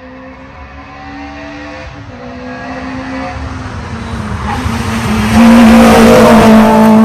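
A Peugeot 205 rally car drives flat out along a forest stage. Its engine note grows from a distance as it approaches, with a short break about two seconds in, like a gear change. It is loudest as the car passes close by near the end.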